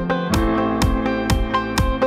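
Instrumental background music with a steady beat, about four beats a second.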